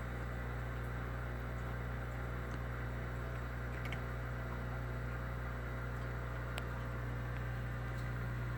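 Steady electrical hum of aquarium equipment running: canister filters and an air pump, with a low mains-frequency drone and an even hiss above it.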